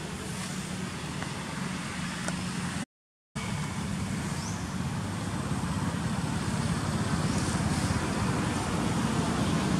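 Steady motor-vehicle engine and road-traffic noise, a low hum under a rushing haze, growing slowly louder toward the end, with a brief dropout about three seconds in.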